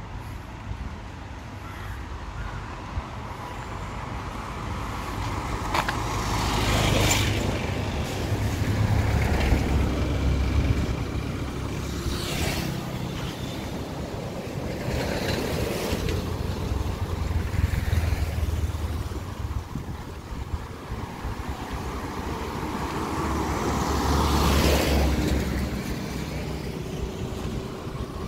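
Road traffic passing close by: several vehicles go by one after another, each rising and fading over a few seconds over a low engine rumble.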